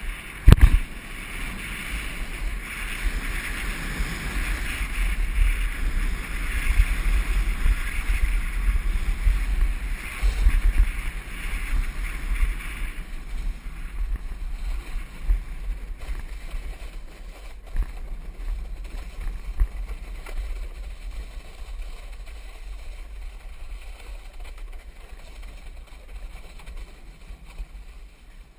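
Snowboard sliding and scraping over wet spring snow, with wind rumbling on the action camera's microphone and a sharp thump about half a second in. The hiss and rumble ease off over the second half.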